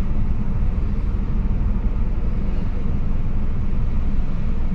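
Steady low rumble of car engine and road noise, heard inside the cabin.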